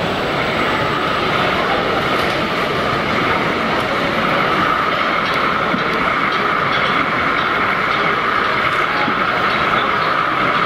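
H0-scale model diesel locomotive hauling a passenger coach along the track: steady running noise with a constant high whine and a few faint clicks.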